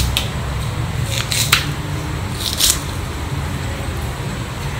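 Kitchen knife slicing okra pods on a wooden cutting board: a few short cuts at uneven intervals, most of them in the first three seconds.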